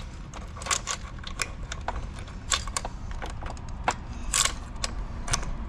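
Loose PowerGrit saw chain clicking and rattling as it is worked by hand around the chainsaw bar and onto the drive sprocket: irregular light metallic clicks of chain links against steel.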